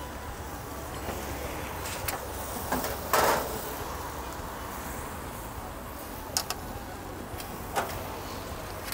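Steady restaurant background noise with several short knocks, the loudest about three seconds in and two quick ones around six and a half seconds.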